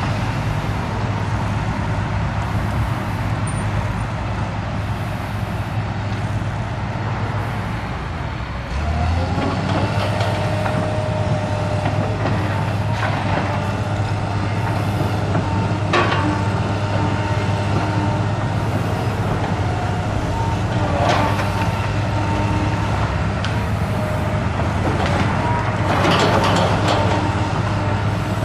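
Heavy diesel demolition machinery running steadily. It picks up revs with a rising whine about nine seconds in, and there are a few sharp knocks and a burst of clattering debris later on.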